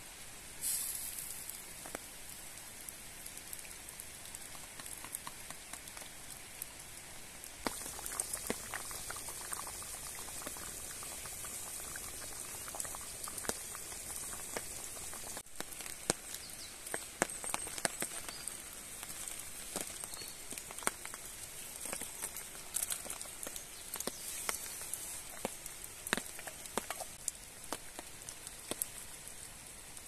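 Stew simmering in a clay bowl set on campfire embers: a steady sizzling hiss with many small crackles and ticks scattered through it.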